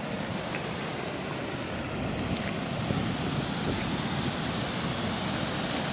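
Waterfall's rushing water: a steady hiss, a little louder from about two seconds in.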